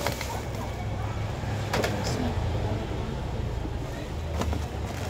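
Used sneakers being handled and dropped on a woven plastic sack: rustling plastic and a few sharp knocks of shoes landing, the loudest about two seconds in, over a steady low rumble.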